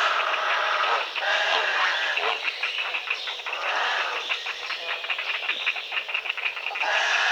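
Grey herons calling: harsh, grating calls, with a run of rapid clicking chatter in the middle.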